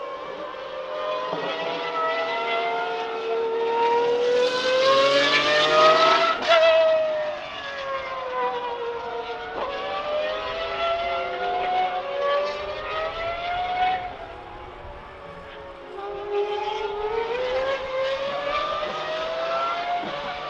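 Pagani Huayra R track cars' naturally aspirated V12 engines at full throttle, the pitch climbing and stepping down through several quick upshifts as one car passes, loudest about six seconds in. The sound fades around fourteen seconds in, then a second car's engine rises again from about sixteen seconds.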